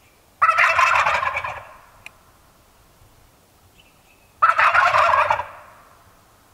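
Wild turkey jakes gobbling: two loud gobbles, each about a second long, the second about four seconds after the first.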